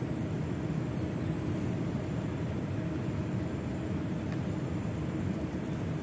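Steady low rumble of wind buffeting a phone's microphone, with a faint high tone that comes and goes about once a second.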